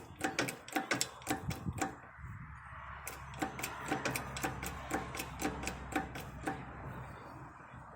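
Rapid, even mechanical clicking, about five clicks a second, with a steady low hum that starts about two seconds in. This is workshop machinery working during the setup to press a new axle bearing into place.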